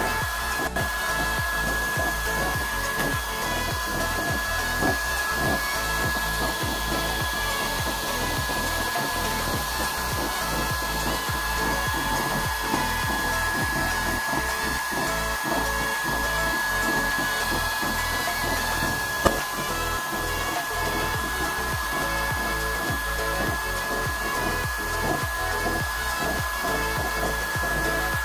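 Homemade waste-oil stove burning a blue flame, with its small electric blower forcing air into the burner: a steady rushing noise with a steady high whine. There is one sharp click about two-thirds of the way through.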